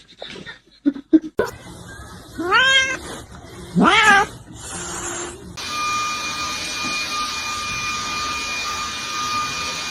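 A cat meowing twice, each call drawn out and rising then falling in pitch, after a few light clicks or taps. About halfway through, a steady whirring noise with a constant whine starts and holds.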